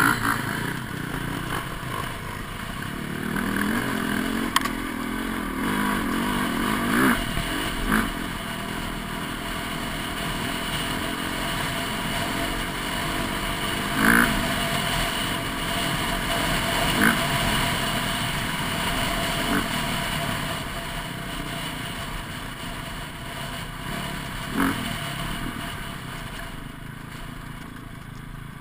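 Dirt bike engine running while riding a rough dirt trail, its pitch rising and falling as the throttle is worked. A handful of sharp knocks and clatter from bumps are scattered through it.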